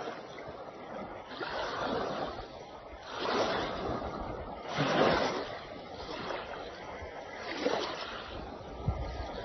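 Waves washing in, one surge of rushing water after another every couple of seconds.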